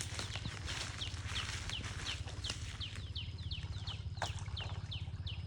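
A bird calling in a rapid series of short, high, downward-sliding chirps, about three a second, with one louder falling call about four seconds in. A steady low hum runs underneath.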